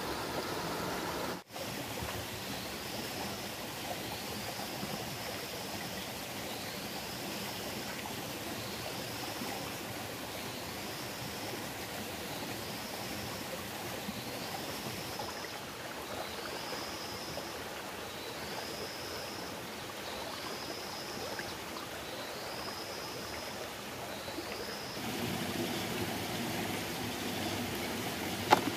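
Shallow rocky stream flowing steadily, with a short high rising call repeated about every second and a half, a bird or insect in the forest. Near the end the running water is closer and louder, with a few sharp knocks.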